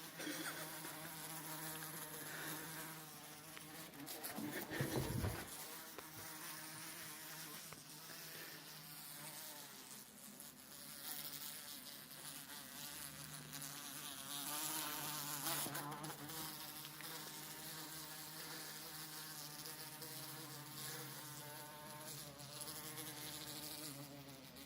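A large bee buzzing steadily, its wing hum drifting up and down in pitch, with a brief low thump about five seconds in.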